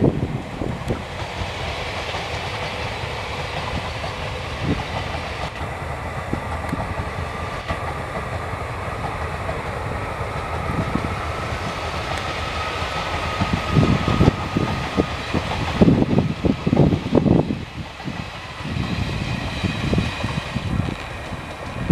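Passenger train of ICF coaches rolling past at speed: a steady rumble of steel wheels on rail with clickety-clack over the rail joints. In the second half, wind buffets the microphone in low gusts.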